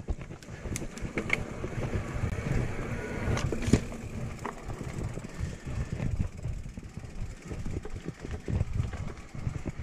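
Wind buffeting the camera microphone as an electric mountain bike rides along, with a few sharp clicks and rattles from the bike over the ground.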